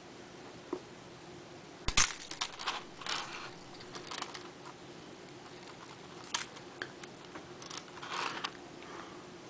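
Handling noise: a small metal toy chain clinking and plastic action-figure parts clicking under the fingers, in scattered sharp clicks. The loudest comes about two seconds in, with more clusters near the middle and near the end.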